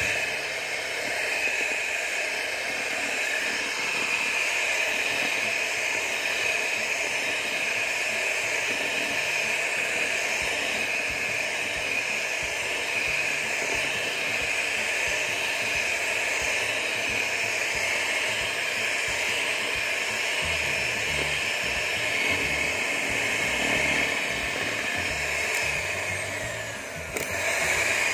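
Electric hand mixer running steadily at speed, its beaters whirring through fresh whipping cream as it is whipped. The sound dips briefly about a second before the end.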